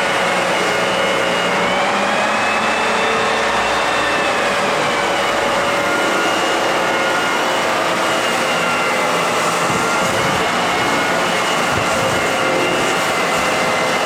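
Lagler Flip floor edger running steadily as it sands pine floorboards along the edges with 120-grit paper, a continuous motor whine over sanding noise that shifts slightly in pitch as the load changes.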